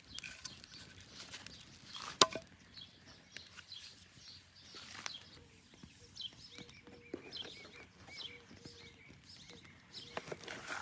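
Birds chirping in short high calls, with a single sharp knock about two seconds in.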